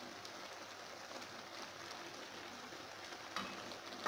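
Creamed spinach simmering in a pan, a steady faint crackling hiss, as a wooden spoon stirs through it. Two light knocks of the spoon against the pan come near the end.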